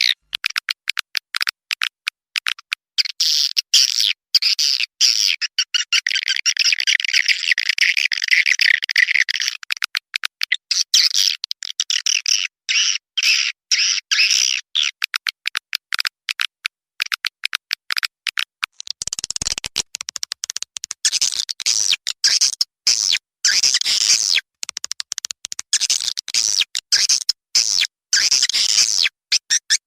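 Recorded swiftlet lure call: edible-nest swiftlets chittering in a rapid, dense stream of high chirps and clicks, the sound played in swiftlet houses to draw the birds in to roost. About two-thirds of the way through, the chatter changes character and turns fuller and lower.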